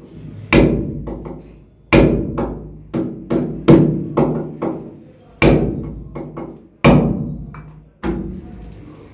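Hammer blows driving a hook into a block wall to hold a bathroom basin diverter in position: about ten sharp strikes at an uneven pace, each fading within a fraction of a second.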